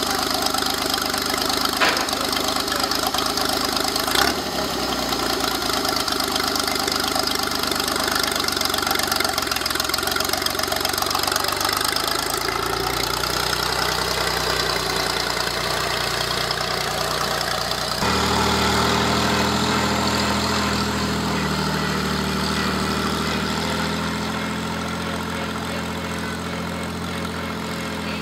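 Vintage tractor engine running steadily at idle, then pulling away, with two short sharp clicks in the first few seconds. About two-thirds of the way in, the sound switches abruptly to a different steady engine note, which fades a little near the end.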